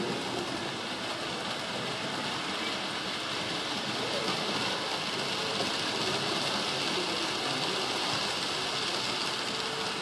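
HO-scale model train running along the track: a steady rolling hiss that grows a little louder near the middle as the train passes close.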